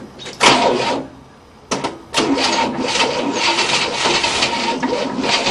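Starter motor turning over the long-dormant engine of a 1967 Cadillac, which does not fire. A short burst about half a second in, a brief pause, then continuous rough cranking with a steady whine from about two seconds in.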